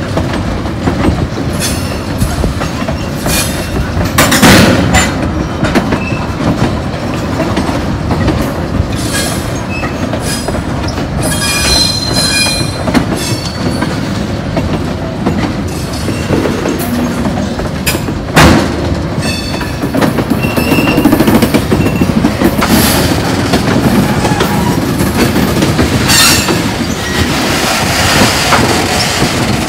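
A long cut of freight cars rolls past: empty tank cars, then loaded gondolas. The wheels rumble and click over rail joints, with a high-pitched wheel squeal around twelve seconds in. Two sharp metallic clanks, about four and eighteen seconds in, are the loudest moments.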